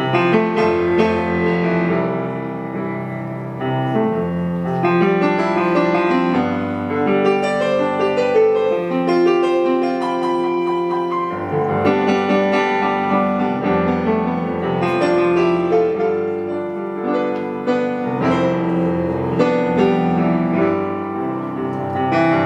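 Piano playing an instrumental passage of a song, sustained chords under a melody, with no singing.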